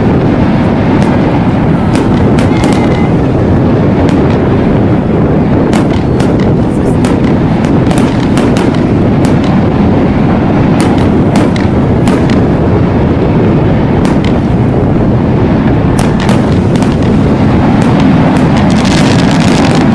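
Fireworks display going off continuously: a constant low rumble of overlapping booms with many sharp cracks throughout.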